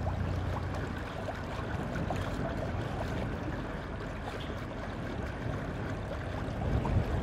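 Steady rush of river water around a moving narrowboat, with a low rumble underneath.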